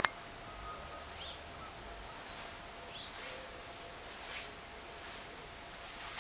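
Small birds chirping outside in quick runs of short, high, thin notes, fading out after about four seconds, over a faint steady room hum; a sharp click at the very start.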